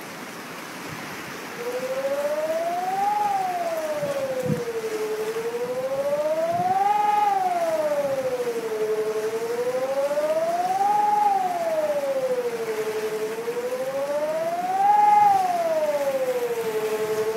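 A siren wailing slowly up and down, rising and falling about every four seconds, starting about a second and a half in, over the steady rush of floodwater.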